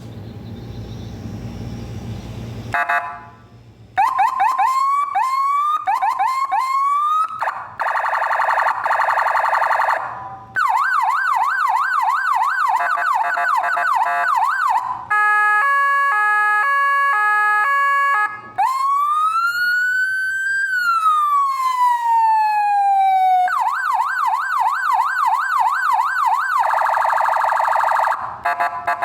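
Landun 100DA electronic siren cycling through its tones. After about three seconds of low rumbling noise come repeated rising whoops, a fast warble, a yelp sweeping up and down about three times a second, and a stepped pattern of jumping tones. Then a long wail rises and falls slowly, and the yelp and fast warble return near the end.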